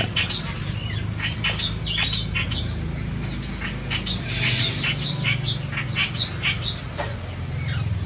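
A run of quick, repeated bird chirps from the aviary's birds, among them the song of a large reed warbler (kerak basi besar). About four and a half seconds in there is a brief rustling burst.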